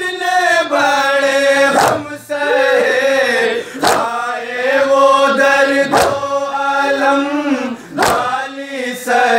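Noha lament sung in Urdu by male voices in unison, a slow chant with long wavering held notes. A crowd of mourners beats matam with hands on chests, one sharp collective slap about every two seconds.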